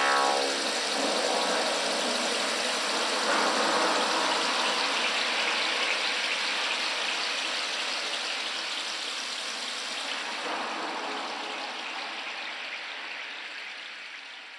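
Rushing, hiss-like noise texture closing out an electronic dance track, with no beat or melody, fading out slowly to silence.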